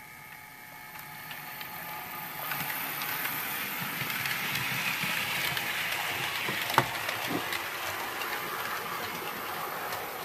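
Bachmann model Class 66 locomotive and autoballaster wagons running on model railway track: a steady electric motor whine at first, fading within about two seconds, then a growing rattle of small wheels clicking over the rails, with one sharp click about seven seconds in.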